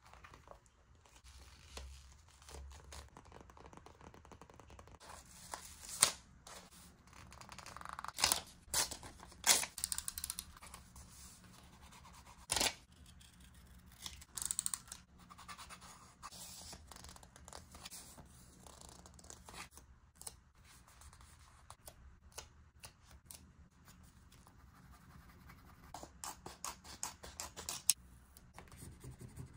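Scissors cutting paper in a series of sharp snips, with paper rustling and scraping between the cuts.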